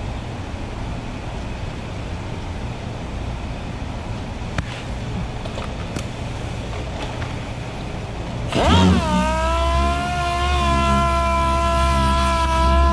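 Steady low hum with a few faint clicks while a sanding disc is pressed onto the sander pad. About two-thirds of the way through, a pneumatic dual-action sander spins up with a sharply rising whine and settles into a steady high whine as it sands body filler on a car door.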